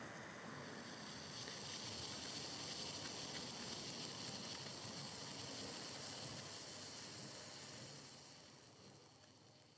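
Faint sizzling and crackling from a glowing molten drop of potassium bicarbonate–sulfur–charcoal sparkler powder on a bamboo skewer. It dies away near the end.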